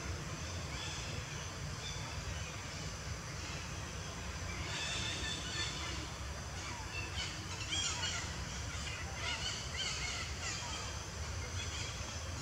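High-pitched, wavering animal calls repeated over several seconds, starting about four and a half seconds in, over a steady low rumble.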